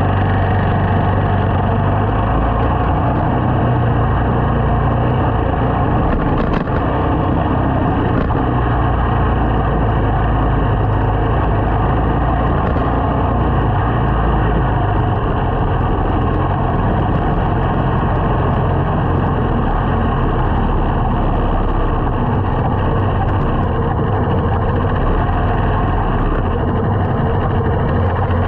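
A small motorcycle's engine running while riding in traffic, with steady road noise, heard from a helmet-mounted camera.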